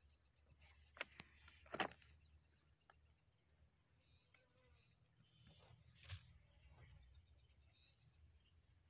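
Near silence: faint outdoor ambience with a steady high hiss, broken by a few soft knocks, twice close together about a second in and once about six seconds in.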